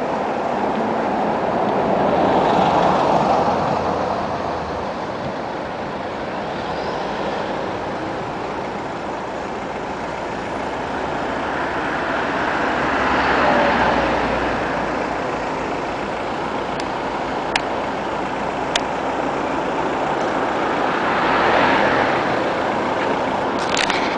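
City street traffic: a steady rush of road noise with vehicles passing close three times, each swelling and fading away, and a few sharp clicks near the end.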